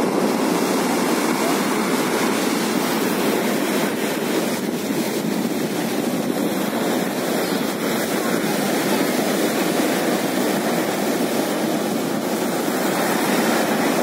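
Sea surf washing and breaking over a flat rocky shore: a steady rushing noise that holds level throughout.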